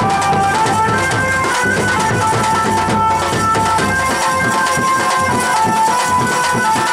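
Bagheli band baja music: several large shoulder-slung drums beaten in a fast, dense folk dance rhythm, with a high melody of held, stepping notes over them. The bass thins from about four seconds in.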